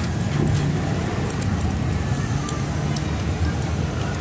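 Meat sizzling on a mukratha grill-hotpot pan, a steady low rumble beneath it, with a few faint clicks of metal tongs.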